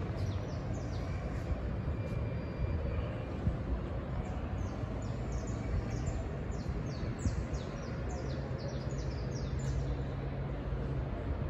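Birds chirping in many short, quick downward chirps, thickest in the second half, over a steady low rumble like distant traffic.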